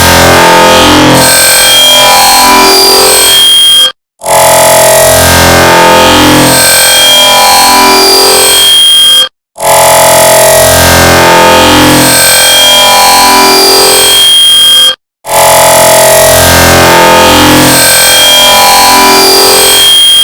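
Motorola phone timer alarm tone stacked on itself many times into a very loud, dense clash of overlapping beeps. It plays in blocks of about five and a half seconds, cut by brief total silences about four, nine and a half and fifteen seconds in.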